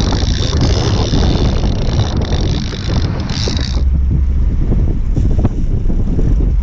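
Wind buffeting the microphone on a small boat at sea, a heavy low rumble with sea noise. A steady high hiss drops out suddenly about four seconds in.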